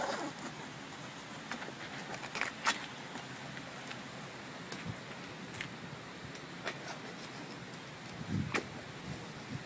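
Tire lever and tire bead clicking and scraping against a BMX wheel rim as the tire is worked back on, in scattered irregular clicks, the sharpest about two and a half seconds and eight and a half seconds in, over a steady hiss.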